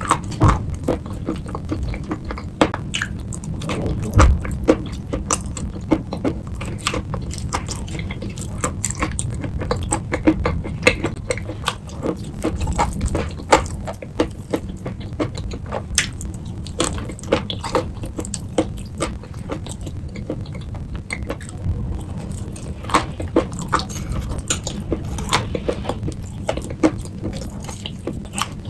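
Close-up chewing and crunching of chalk mixed into a wet paste, a dense run of irregular sharp crackles, with a metal spoon clinking and scraping in a ceramic bowl.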